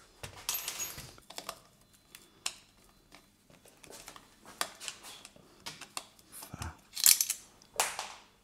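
Hands working a battery mount on a bicycle frame's down tube: scattered clicks, knocks and rustling, with a louder pair of clatters about seven and eight seconds in.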